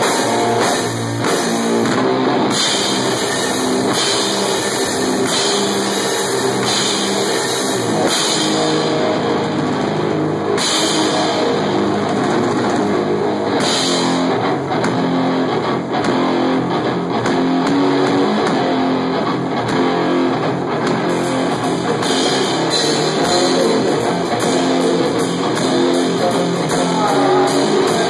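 Loud heavy rock played live by a guitar-and-drums duo: distorted electric guitar over a full drum kit with crashing cymbals, recorded through a phone's microphone.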